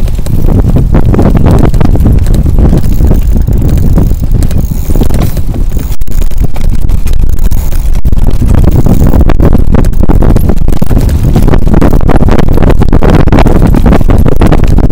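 Bike trailer towed behind a bicycle, rolling over pavement: loud, steady road rumble with constant rattling, heard from inside the trailer.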